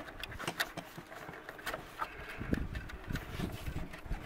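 Starlink dish cable being pushed by hand up into a tight drilled hole in wooden siding: faint scraping and scattered clicks as the cable rubs and catches on the edges of the hole, with one sharp click right at the start.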